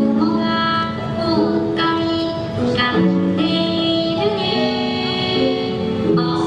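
Background music: a song with a high sung melody in held notes over a plucked-string accompaniment.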